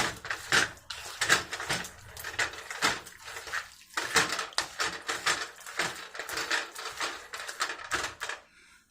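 A utensil scraping and clinking against a cooking pot in quick, uneven strokes as marinated chicken and spices are stirred together. The stirring stops near the end.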